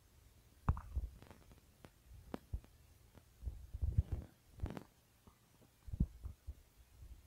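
Faint, irregular thumps and clicks over a steady low hum: fingers tapping and dragging on a phone touchscreen, picked up as handling noise.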